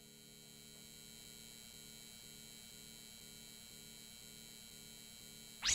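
Faint steady hum with a light, evenly pulsing undertone. A loud sweeping tone cuts in right at the very end.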